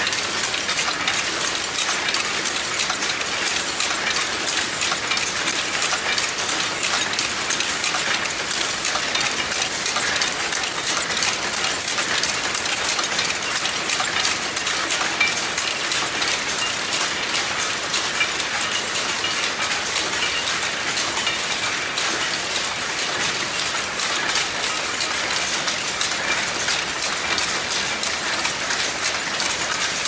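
Automatic wire mesh weaving machine running: a steady, dense metallic clatter of rapid clicks and rattles.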